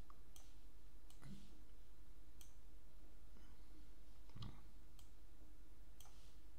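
Several scattered computer mouse clicks, short and sharp, over a faint steady low hum.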